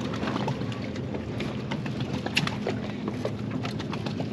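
Steady low hum and water-and-wind noise aboard a fishing boat, with scattered light clicks and knocks while a big hybrid striped bass is fought to the boat.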